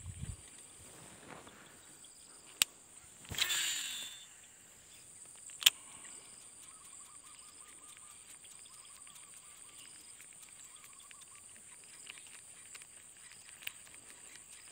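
A steady high insect drone with a baitcasting reel working over it. A sharp click comes about two and a half seconds in, then a brief whirr that falls in pitch as the spool spins down on a cast. A second, louder click about two seconds later as the reel is engaged.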